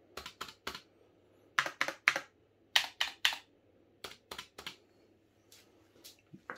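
Backspace key on Razer Huntsman optical-switch keyboards pressed repeatedly. The key clacks come in quick groups of three, about a second apart, and grow fainter near the end.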